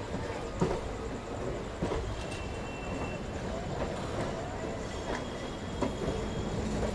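Passenger train of ICF coaches running along the track: a steady rumble with a few sharp clicks of the wheels over rail joints and faint high wheel squeal now and then.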